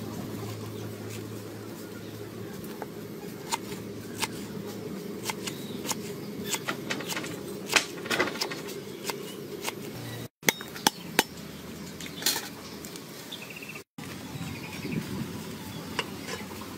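A knife cutting through pineapple flesh and knocking on a wooden cutting board: irregular sharp clicks and taps over a steady low background noise. The sound drops out briefly twice.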